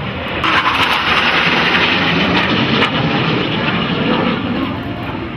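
Formation of U.S. Navy F/A-18 Hornet jets, each with twin General Electric F404 turbofans, flying past: the jet noise swells suddenly about half a second in, stays loud for a couple of seconds, then fades as the jets move away.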